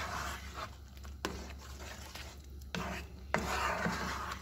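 Red silicone spatula stirring a thick étouffée in a stainless steel pan, with stirring strokes in the sauce and a few sharp knocks of the spatula against the pan, one about a second in and two near the end.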